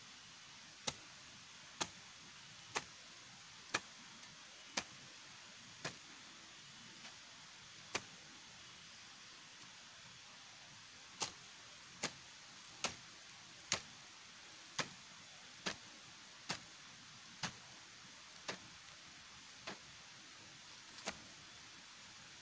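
Sharp single knocks repeating about once a second, with a pause of about three seconds near the middle, over a faint steady hiss.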